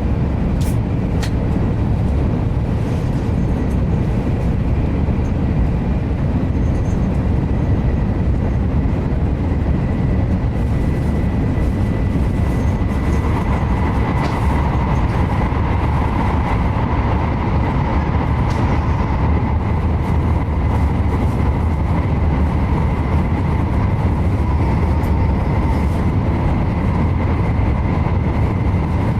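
Shinkansen bullet train running at speed, heard from inside the passenger cabin: a steady deep rumble with a thin high whine over it. About halfway through, a second, higher hum joins and holds.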